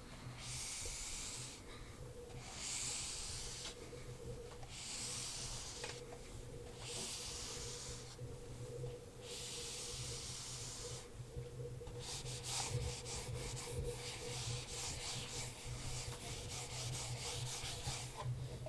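Whiteboard eraser wiping the board in long swipes, about one swish a second. From about twelve seconds in this gives way to a quicker run of short scratches as a marker writes on the whiteboard.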